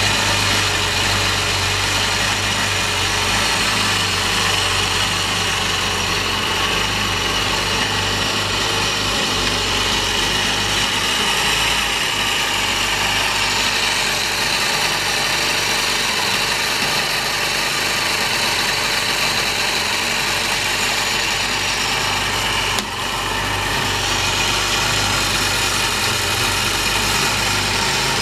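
Small engine inside a large-scale RC model tank, running steadily at idle on a test run. The level dips briefly once near the end.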